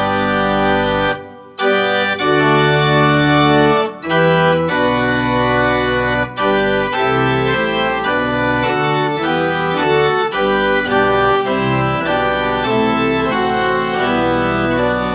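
Organ music: sustained chords held and changing every second or so, with a brief break about a second and a half in.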